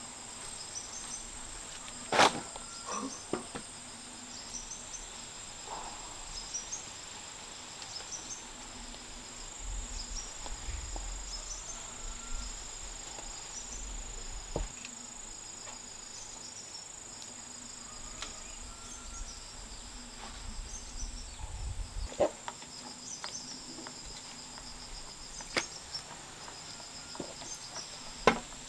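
Insects chirping steadily in a high, repeating pattern, with scattered sharp knocks from clothes being washed in a plastic basin with a bamboo pole.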